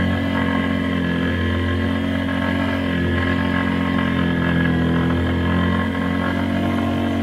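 ATV engine running at steady, low revs, heard from a camera mounted on the quad's front rack as it rolls slowly along a snowy track.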